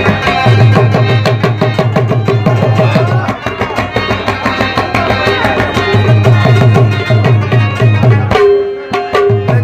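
Instrumental passage of Pashto ghazal music: an Afghan rubab plucked rapidly over a steady tabla rhythm with deep bass strokes. Near the end the drumming stops for about a second, leaving a single held note.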